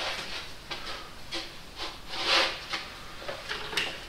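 Light handling noises at a workbench: a few small clicks and taps, with a brief rustle about two and a half seconds in.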